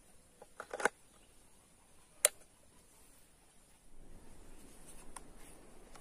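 Plastic clicks of a plug being pushed into an extension switchboard socket, a short rattle of clicks just under a second in, then one sharp click a little over two seconds in as the board's rocker switch is snapped on; the chainsaw motor is not yet running.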